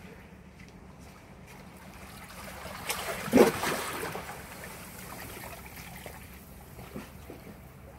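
Seawater washing over shore rocks, swelling into one louder splash about three and a half seconds in, then settling back to a steady wash.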